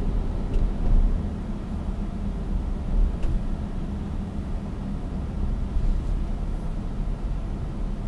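Audi Q7 3.0 TDI heard from inside the cabin while driving slowly in traffic: a steady low rumble of the V6 diesel engine and the tyres on the road.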